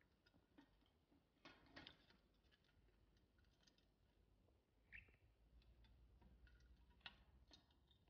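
Near silence with a few faint, scattered clicks: a budgie pecking about the cage floor and its plastic dish.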